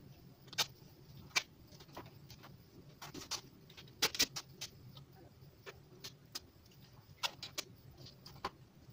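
Duct tape being pulled off the roll in short tugs and pressed onto a concrete weight plate: scattered sharp crackles and clicks at irregular intervals.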